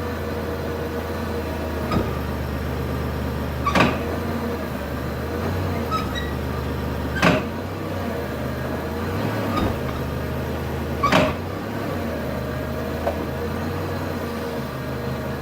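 2004 Chrysler Pacifica running with a steady low hum, broken by sharp clunks from the front end: three loud ones about three and a half seconds apart and a couple of lighter ones. The clunking is the customer's complaint, which the mechanic takes for something broken.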